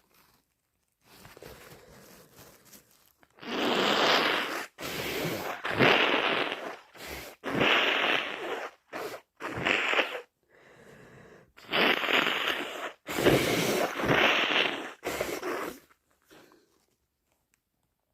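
A person congested with a heavy cold blowing their nose hard, about seven forceful blows of a second or so each, starting a few seconds in.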